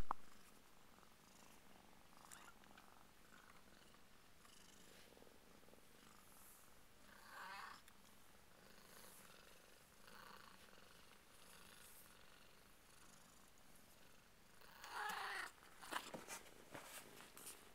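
Burmese cat purring softly in a nesting box with her two-week-old kittens. A short higher sound comes about halfway through and a louder one about fifteen seconds in, followed by a few rustling clicks near the end.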